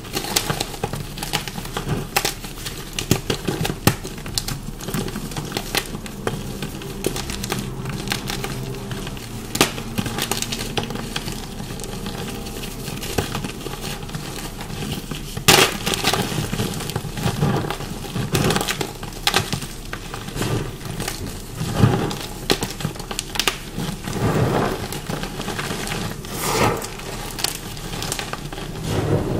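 Dyed chalk blocks being bitten and chewed: dense, crunchy crackling with sharp snaps, and several louder crunches in the second half.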